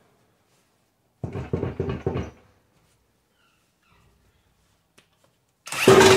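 Cordless impact wrench driving the screw of a scissor-type transmission jack, lowering a heavy cast-iron tractor oil pan: a run of about a second, a pause, then a shorter, louder run with a steady whine near the end.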